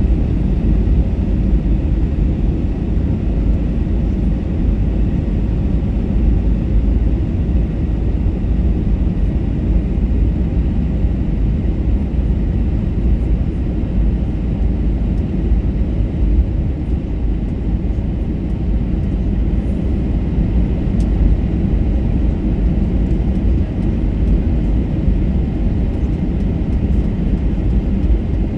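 Steady low rumble of engine and airflow noise inside an Airbus A321-231's passenger cabin during the descent before landing.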